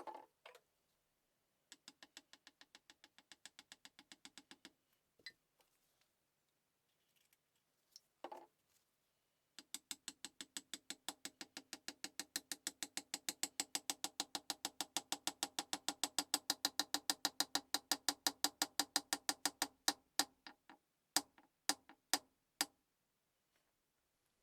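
Singer 15-class sewing machine mechanism running, clicking once each stitch cycle. A short run of about six clicks a second is followed by a longer, faster and louder run that picks up speed and then slows to a stop. A few single clicks come near the end.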